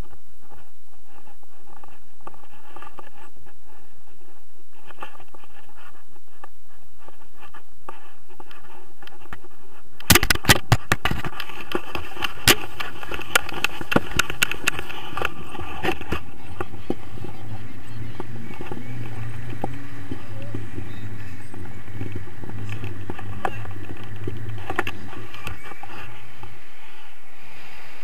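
Tandem paraglider launch heard from a harness-mounted camera: a sudden run of knocks and clatter starts about ten seconds in as the wing comes up, then a low wind rush on the microphone as the pair run and lift off.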